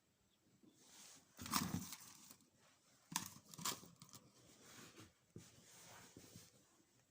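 Faint rustling and handling noises, with a louder scrape about a second and a half in and two sharp clicks a little after three seconds.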